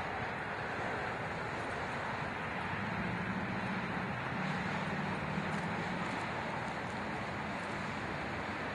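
Road traffic: steady noise of vehicles on the road, with one vehicle's low engine hum growing louder about three seconds in and fading after about six seconds.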